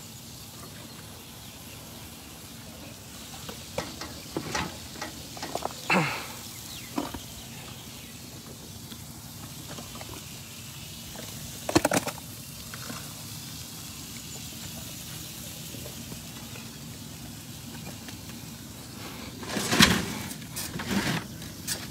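Elephants eating hand-fed pumpkins: scattered cracks and crunches over a steady low hiss, the sharpest about twelve seconds in and a louder cluster near the end.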